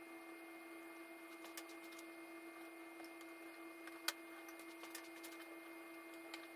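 Faint, scattered clicks of diesel fuel return lines being worked off the injectors of a Mercedes OM617 diesel engine, with one sharper click about four seconds in, over a steady low hum.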